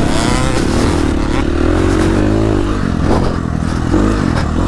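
KTM 350 SX-F dirt bike's single-cylinder four-stroke engine revving up and down as it is ridden around a motocross track, its pitch rising and falling several times.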